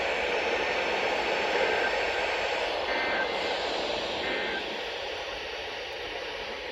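Radio receiver giving out steady static hiss with no station coming through, a sign of no signal or poor reception. Two faint short beeps sound about three and four seconds in.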